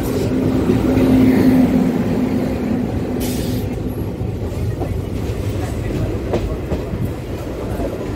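A moving passenger train's coaches heard from the open doorway: a steady rumble of wheels on the track with some clatter. A steady hum fades out about three seconds in, and there is a brief hiss just after.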